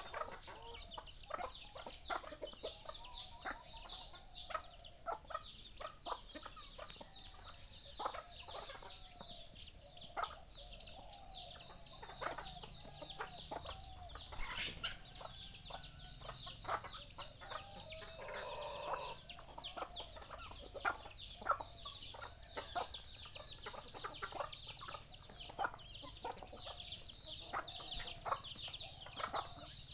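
A steady chorus of animal calls: many short high chirps a second over lower clucking calls.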